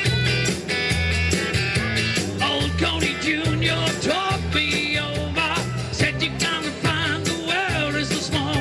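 Live band playing rock and roll with a steady bass and drum beat and melodic lines over it, with no words sung.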